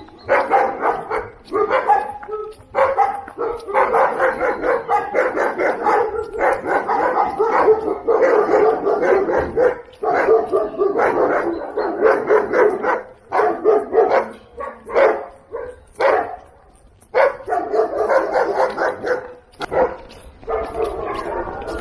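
Dogs barking and yelping in long, rapid runs, breaking off briefly a few times. The barking comes as the dog meets other dogs.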